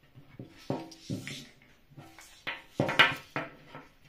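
Knocks, clatter and scraping of two large RC car speed controllers, a Hobbywing MAX4 and a Castle XLX2, being handled and set down on a table. Their metal cases and heat sinks bump and ring briefly, with the loudest knock about three seconds in.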